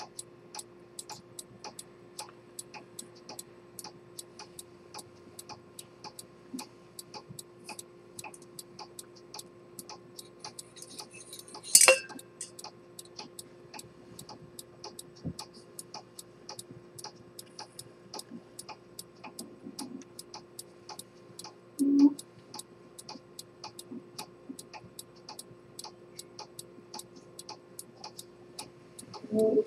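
Antique chronometer pocket watch with an Earnshaw-type spring detent escapement, ticking rapidly and evenly, several ticks a second. A sharp loud click sounds near the middle, and two duller knocks come in the last third.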